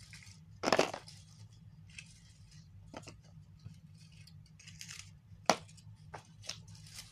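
Scattered clicks, taps and light rustles of small items and packaging being handled, with a louder knock about a second in and another about five and a half seconds in.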